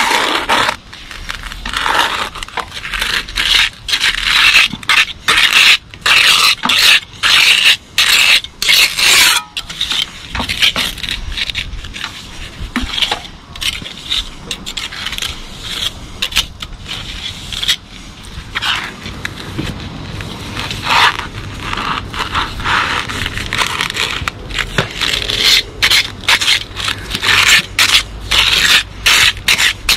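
A narrow steel finger trowel scraping mortar off a pointing trowel and packing it into a brick bed joint. It makes many short, irregular scrapes of metal and gritty mortar, one after another.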